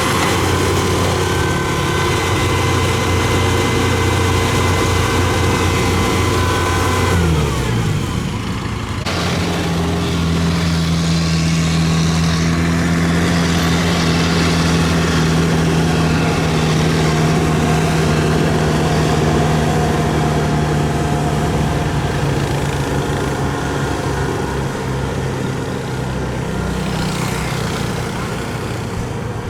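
Kubota DC-70 combine harvester's diesel engine running steadily at working speed. About seven seconds in its pitch slides down, and then it runs on at a steady note.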